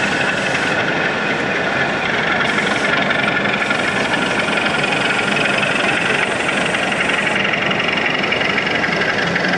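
Model Class 37 diesel locomotive running slowly, with a steady diesel-engine sound, over the constant background noise of a busy exhibition hall.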